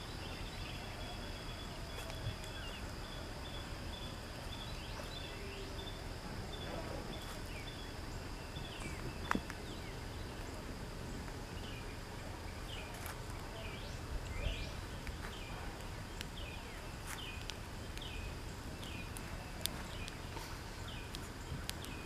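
Woodland evening ambience: a bird gives short rising chirps over and over, over a steady high insect drone. Footsteps crunch now and then on dry leaves and twigs.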